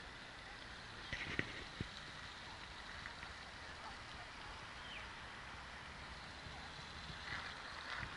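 Quiet outdoor ambience: a steady low hiss of distant background noise, with a few footsteps on a gravel path about a second in.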